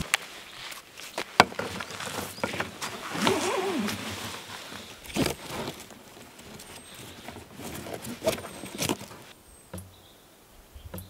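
Handling noise of a cord being tied around a birch trunk and a plastic water bottle: scattered clicks, crinkles of the plastic and rubbing of cord on bark, with a brief creak about three seconds in. It grows quieter near the end.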